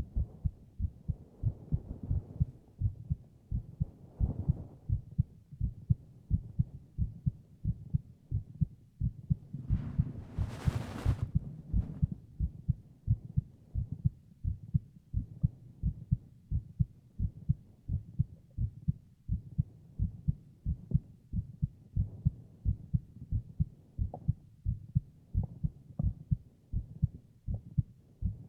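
A man's heartbeat heard close up in a binaural recording: a steady, even rhythm of low, dull thumps. About ten seconds in, a soft hiss lasts for about two seconds.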